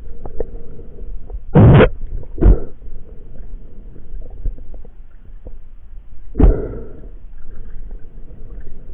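Three short, loud calls with a falling pitch heard underwater, one at about a second and a half in, a shorter one just after, and another past the middle, with faint crackling and ticks between them.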